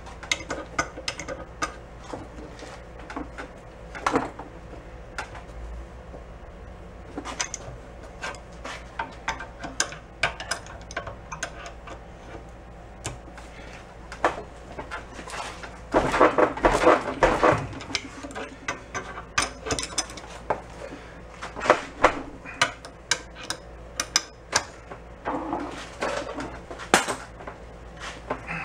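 Adjustable wrenches clicking and clanking on a piece of flat bar stock clamped in a steel bench vise as it is levered over toward a right-angle bend. The irregular metal knocks come thickest in a dense rattle about halfway through.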